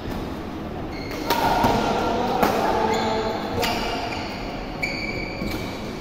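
Badminton rally in a large hall: rackets striking the shuttlecock several times, roughly a second apart, with short squeaks of shoes on the court floor.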